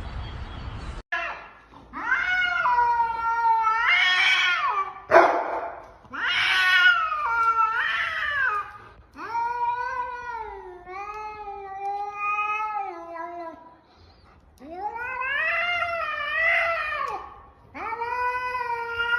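An animal's long, wavering wails, about six of them one after another, each drawn out over one to several seconds and bending up and down in pitch.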